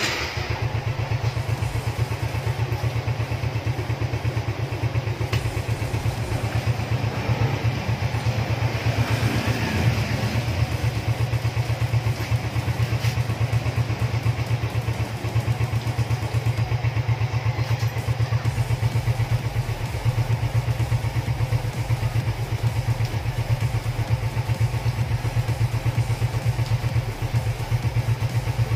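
Suzuki Smash 115 motorcycle's small single-cylinder four-stroke engine catching at the start and idling steadily, with a slight rise in revs about ten seconds in.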